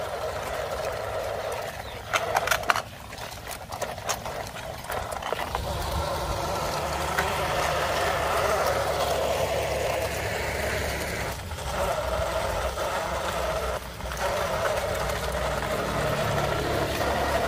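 A plastic toy trailer truck's wheels rolling and rattling over wet, gritty ground as it is pulled along, with a few sharp plastic clicks and knocks in the first few seconds, loudest about two seconds in.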